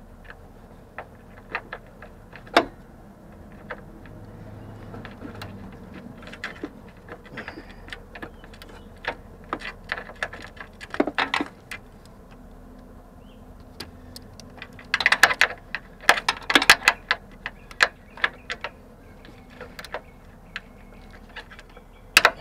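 Hand socket ratchet clicking in short runs as bolts are worked, with scattered sharp clicks and knocks of tools on metal; the densest run of quick clicks comes about two-thirds of the way through.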